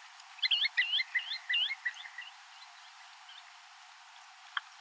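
A bird calling: a quick run of about eight short chirping notes, lasting under two seconds, over a faint steady hiss. A single sharp click comes near the end.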